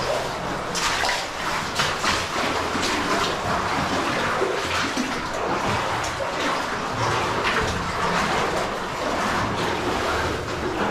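Running water in an underground cave stream, a steady rush broken by frequent short splashes.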